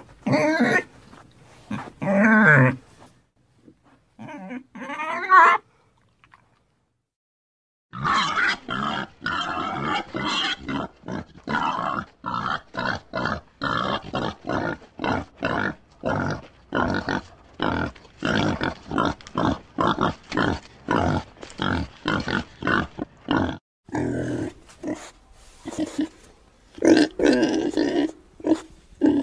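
Pigs grunting and squealing. A few squeals come first, then after a brief silence a long run of rapid, evenly spaced grunts, followed by louder calls near the end.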